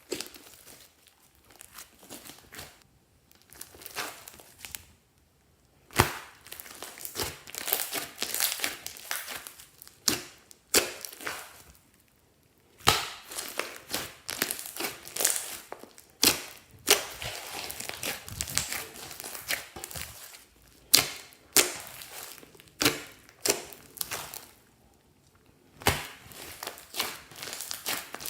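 Slime being squeezed and pressed by hand: irregular crackling and sharp pops in bursts, with a few short pauses between them.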